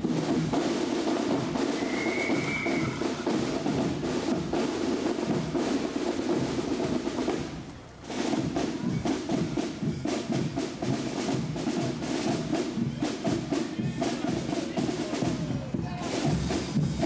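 Marching band drumming, with snare and bass drums keeping a march beat. The sound dips briefly about halfway through, then the drumming carries on.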